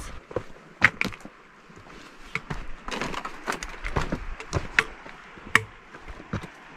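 Footsteps on a rocky trail: irregular sharp taps and crunches of shoes on stone, loose rock and dry leaf litter.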